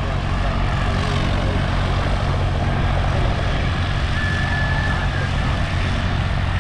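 Radial piston engines of a B-17 Flying Fortress running steadily: a loud, even propeller-aircraft drone. A faint high whistle is heard for about a second past the middle.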